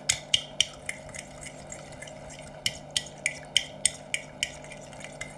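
Metal forks beating egg yolk and milk in a ceramic bowl, the tines clicking against the bowl about three times a second in two runs, with a lull in between.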